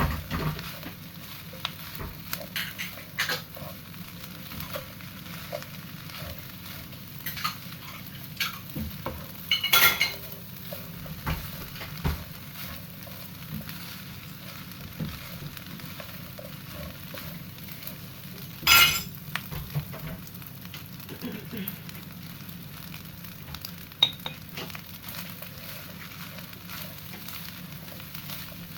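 Food sizzling in a frying pan while being stirred, with a utensil scraping and knocking against the pan now and then; the sharpest knocks come about ten and nineteen seconds in.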